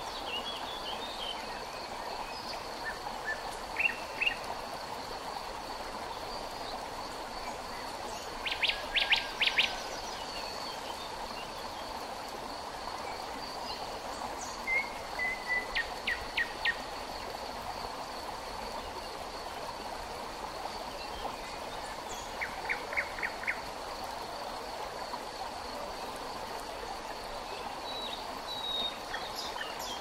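River water running steadily, with a constant high trill of insects and birds calling several times in quick runs of four or five notes.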